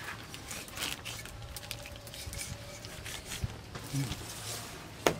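A kitchen knife cutting the innards out of a pig carcass laid on a plastic sheet: faint scattered rustles and small wet clicks, with one sharp click just before the end.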